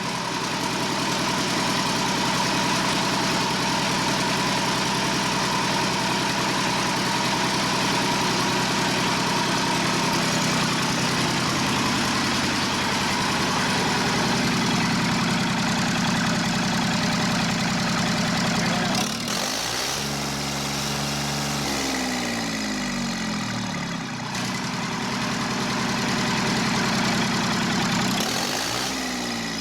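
New Yanmar 3TNE84 three-cylinder diesel engine being test-run, idling steadily. About two-thirds of the way through its speed swings up and down, and it does so again near the end.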